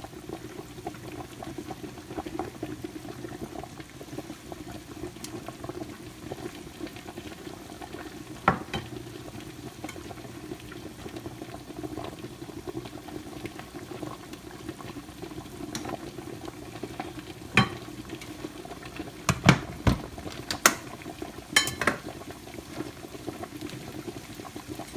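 Thick creamy sauce simmering and bubbling in a skillet. A few sharp clicks and knocks stand out above it, one about eight seconds in and a quick cluster of them around twenty seconds in.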